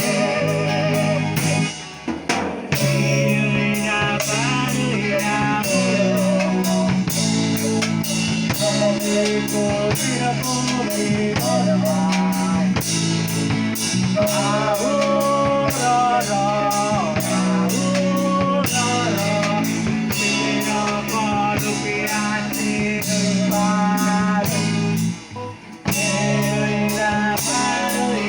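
Acoustic song: a sung melody over guitar, bamboo pan pipes and a steady percussion beat. The music drops away briefly about two seconds in and again near the end.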